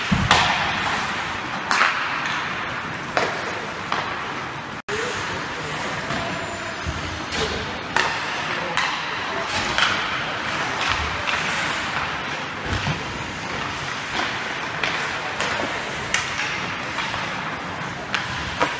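Ice hockey practice on a rink: skates scraping the ice, with sharp clacks of sticks, pucks and boards every second or two.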